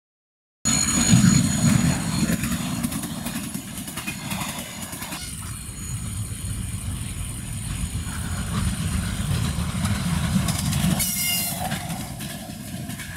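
Electric passenger train with double-decker coaches passing close by, a steady low rumble of wheels and cars on the track. The sound cuts in abruptly just under a second in. About eleven seconds in there is a brief high-pitched screech.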